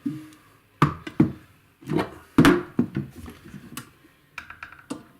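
Irregular knocks and clunks of the pickup winder's housing and internal parts being handled and moved as its case is opened, with a short rattle near the end.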